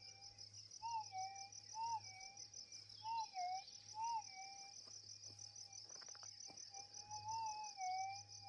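Minelab GPX 6000 metal detector's steady threshold tone, swelling and bending up and down in pitch about once a second as the 17-inch coil is swept back and forth over a dug hole. A steady, pulsing insect trill sounds high above it.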